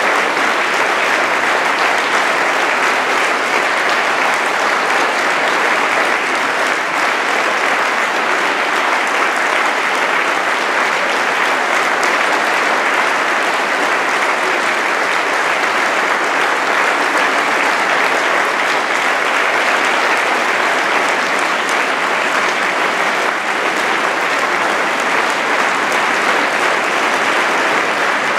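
Audience applause, dense and steady, holding at one level throughout.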